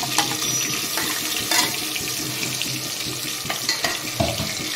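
Freshly added wet onion, cashew and green-chilli paste sizzling in hot oil: a steady hiss with scattered crackles and pops.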